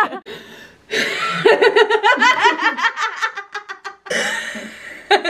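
A group of girls laughing hard in quick, breathy bursts, with a short lull near the start and a fresh burst of laughter about four seconds in.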